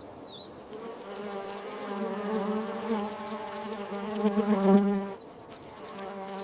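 Flying insect buzzing: a steady, pitched hum that swells louder about four to five seconds in, then drops off sharply to a fainter buzz.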